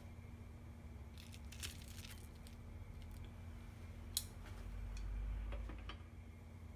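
Faint handling sounds of a panko-breaded, deep-fried horse mackerel fillet being laid on a white ceramic plate: a few light crackly clicks, one sharp tap about four seconds in, then a low dull thud.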